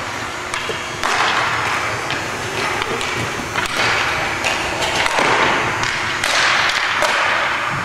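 Hockey play: sharp clacks and knocks of sticks and puck over a swelling, scraping hiss of skates on the rink surface.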